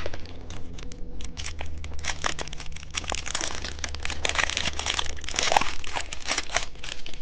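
Plastic candy wrapper crinkling and rustling as it is handled and torn open, a dense run of irregular crackles.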